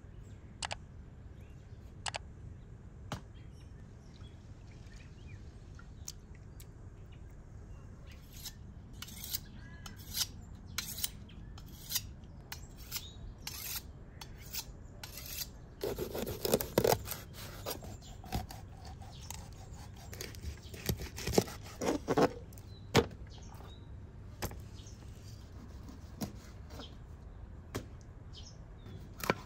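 Kitchen knife work on food: sharp clicks and scraping and cutting strokes, with louder knocks and scrapes against a wooden cutting board in the middle, and a few light clinks of a spoon at first.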